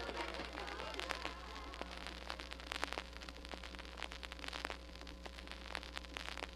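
Vinyl LP surface noise in the silent groove between two tracks: scattered crackle and pops over a steady low hum.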